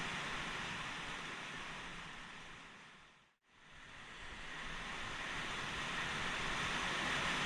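Steady rush of a fast mountain river, fading out to silence about three seconds in and fading back up again.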